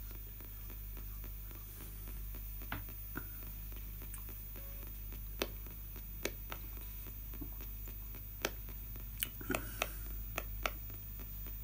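Spirit box radio sweeping the AM band in reverse: a faint steady hum and static, broken by scattered short clicks and brief blips as it jumps between frequencies, more of them near the end.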